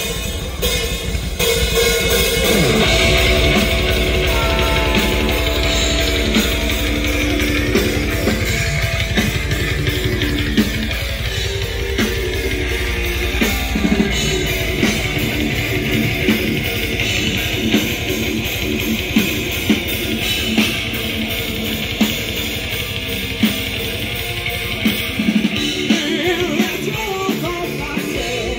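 A rock band playing live: electric guitars, bass guitar and drum kit, with a woman singing.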